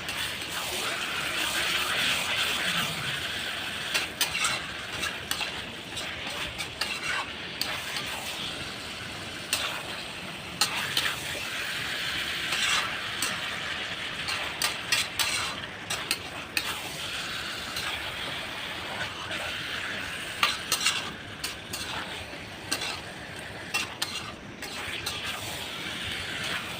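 Food sizzling as it fries in a pan, a steady hiss throughout. It is being stirred, with irregular scrapes and knocks of a cooking utensil against the pan.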